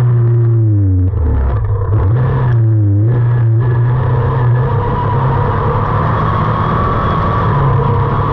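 The racing buggy's engine runs hard at close range. Its revs drop briefly twice, about half a second in and again near three seconds, then hold steady.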